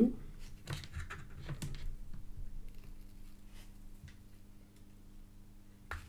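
Faint handling noises of multimeter test probes being fitted onto the pins of a DIN plug and a VGA connector: small clicks and rustles, mostly in the first couple of seconds, over a steady low hum.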